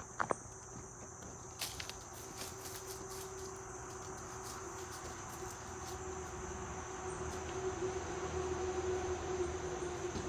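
Minivan engine running at a distance, a steady hum slowly growing louder, as it burns off Powerfoam intake cleaner. A steady chorus of crickets goes on beneath it, with a few sharp clicks near the start.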